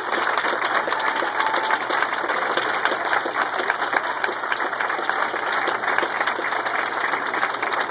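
Audience applauding loudly: a dense, steady patter of many hands clapping at once.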